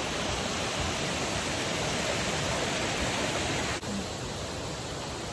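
Nuranang Waterfall's falling water making a steady rushing noise, which dips for an instant about four seconds in and carries on slightly quieter.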